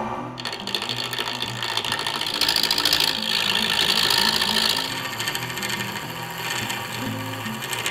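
A hand-held turning tool cutting into a spinning bubinga handle blank on a wood lathe, a rapid rattling hiss that is loudest in the middle: the blank is being rounded toward the front of the handle. Background music plays underneath.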